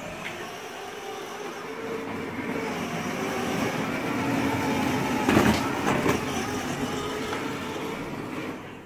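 Battery-powered ride-on toy car driving, its small electric motor and plastic wheels rumbling over a tiled floor and growing louder. There are a couple of sharp knocks about five and six seconds in.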